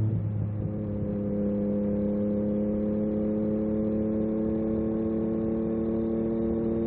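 Yamaha MT-09 SP's inline three-cylinder engine running through an Akrapovic carbon racing exhaust under way. The pitch shifts about half a second in, then the revs climb slowly and steadily.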